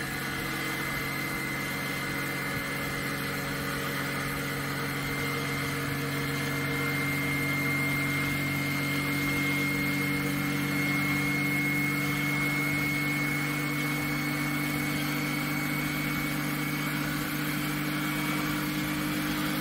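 A small DC motor drives a steel flywheel and a coupled DC motor working as an unloaded generator, running steadily as the flywheel gains speed. There is a low hum and a high whine, and both creep slowly up in pitch.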